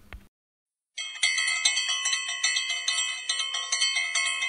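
Puja hand bell rung rapidly and continuously, about four or five strikes a second, as the ringing for the lamp offering (aarti). It starts about a second in after a brief silence.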